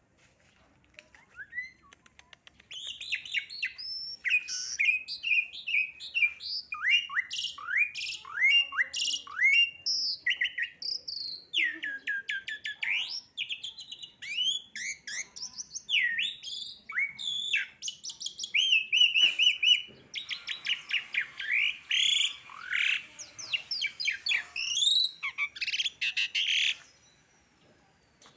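A songbird singing a long, varied song of quick whistled notes, trills and sweeping slurs. It starts a few seconds in and stops about a second before the end.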